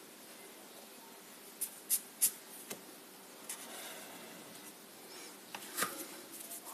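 Black marker drawing on paper: several short scratching strokes, bunched around two seconds in and again near the end, over a faint steady hiss.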